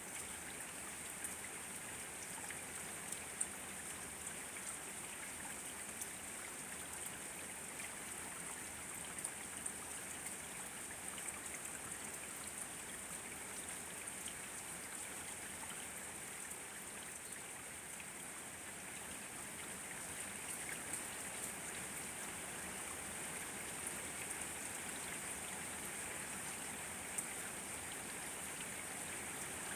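Steady rain falling, a continuous hiss dotted with many small drop ticks, growing slightly louder in the last third.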